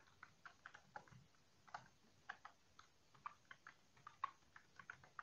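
Faint computer keyboard typing: a run of irregular keystroke clicks, about four a second.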